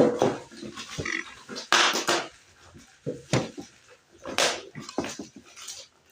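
Packaging being handled during an unboxing: irregular short rustles and crinkles with an occasional knock, the sharpest knock about three and a half seconds in.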